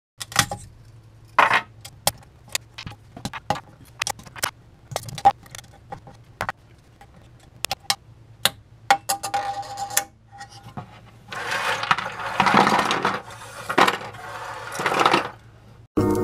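Small 3D-printed plastic parts being pried and popped off a Prusa i3 MK2 printer's heat bed with a blade: a run of sharp clicks and taps, then several seconds of louder scraping, over a steady low hum.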